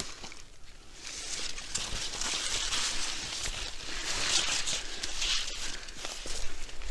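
Sunflower leaves and stalks rustling and crackling as someone pushes through the crop, with footsteps; the rustle swells from about a second in.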